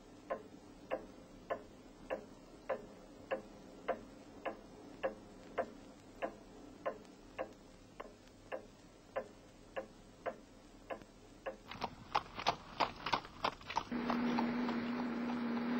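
Pendulum wall clock ticking steadily, a little under two ticks a second. About twelve seconds in it gives way to the quicker clopping of horse hooves on a street, and near the end a steady hum and street noise come in.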